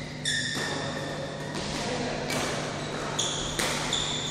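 Badminton rally on an indoor court: court shoes squeaking in short high-pitched chirps on the court mat as players move, mixed with sharp racket hits and footfalls, a handful of each over a few seconds.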